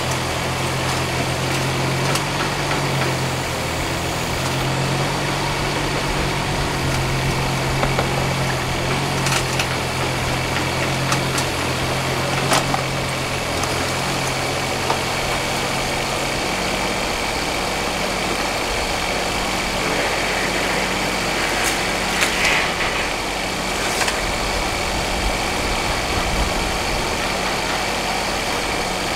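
Mini excavator's diesel engine running steadily, its hum changing to a lower, rougher note about halfway through as the engine speed drops. A few brief metallic clinks from the machine come through over it.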